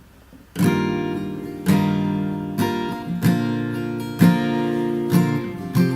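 Acoustic guitar strumming chords. It starts suddenly about half a second in, with a fresh strum about once a second.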